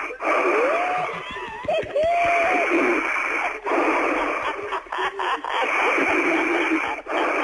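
A woman snoring heavily into a telephone, heard over the phone line, in long rasping breaths of about two to three seconds each with short pauses between them. The snore is mixed with her breathing because the phone is held close to her mouth.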